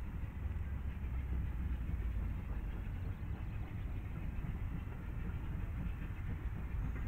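Distant Bulleid West Country class steam locomotive working a passenger train, heard as a steady low rumble with a hiss above it.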